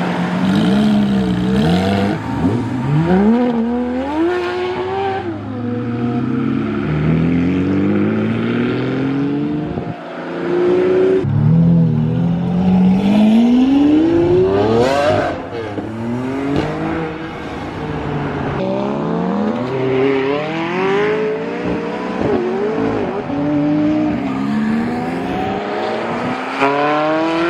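Supercar engines revving and accelerating hard in turn: a Porsche 911 GT3 RS flat-six, a Lamborghini Aventador SVJ V12 and a Ferrari 360 V8. Each pulls away with its pitch climbing and dropping back at the gear changes.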